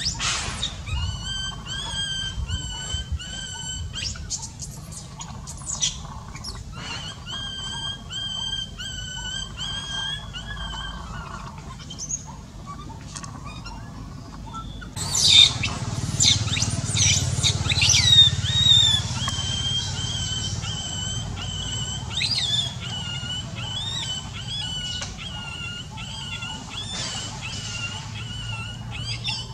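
Newborn baby macaque crying: long, high, wavering whining calls, each held for a second or more. About halfway through they give way to louder, sharper cries that sweep quickly up and down.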